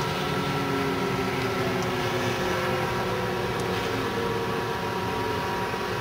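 Outdoor tornado warning sirens sounding together: several steady tones overlap, some slowly falling in pitch, over a steady hiss.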